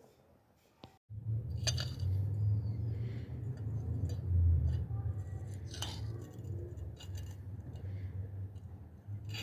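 A few sharp metal clinks, spaced seconds apart, over a steady low rumble.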